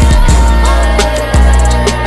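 Sped-up hip hop track playing: deep sustained bass notes under quick hi-hat ticks, the bass note changing about a second and a half in.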